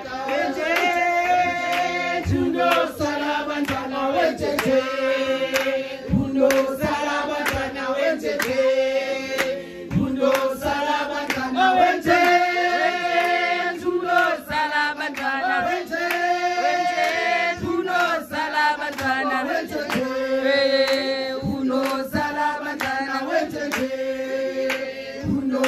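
A group of voices singing a traditional isiXhosa song together in long held phrases, with sharp claps keeping time.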